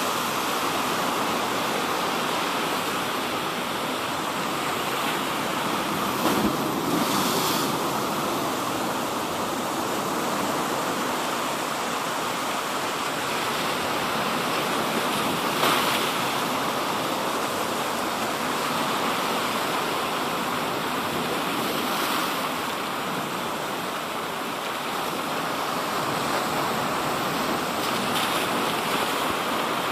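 Sea waves washing onto the shore: a steady rush, with a louder surge now and then.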